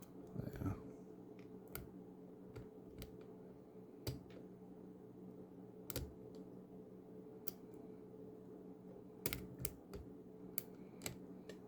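Light, irregular metallic clicks from a pick working the discs of a five-disc stainless steel disc lock held under tension by a turning tool, a dozen or so scattered ticks in all. A faint steady hum runs underneath.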